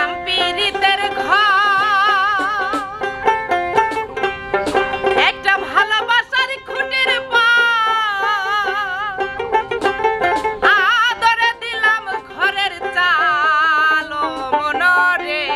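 Bengali folk song: a woman sings with strong vibrato over a plucked dotara, whose notes are heard alone for about the first second before the voice comes in.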